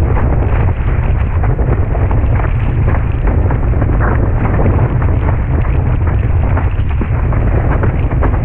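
Loud, constant wind buffeting on the action camera's microphone while windsurfing at speed, a heavy rumble with water splashing and rushing as the board cuts through chop.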